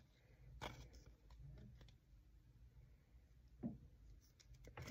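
Near silence, with a few faint clicks and rustles of trading cards being handled, about half a second in and again near four seconds.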